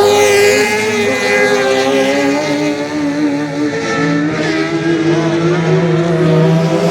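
Engines of off-road 4x4 race cars revving through a turn, several at once, their pitch rising and falling with the throttle.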